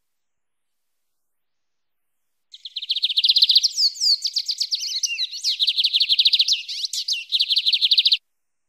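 Lined seedeater (bigodinho) singing its wild-type 'mateiro' song: a fast run of high notes repeated about a dozen times a second, with a few downward-sliding notes in the middle. The song starts about two and a half seconds in and cuts off abruptly near the end.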